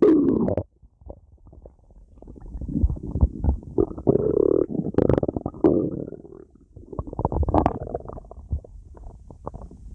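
Stomach gurgling and rumbling in irregular, bubbling surges, going quiet briefly about a second in and again past the middle.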